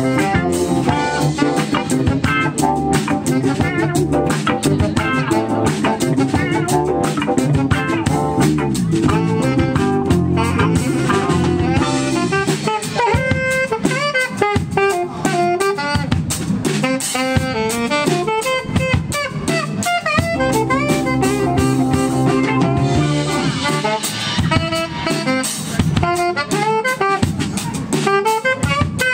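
Live band playing an upbeat jazzy instrumental: drum kit keeping a steady beat under electric guitars, keyboard and saxophone.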